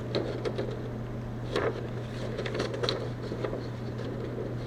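Paper being loaded into a Smith-Corona Super 12 typewriter: scattered light clicks and brief paper rustling over a steady low hum.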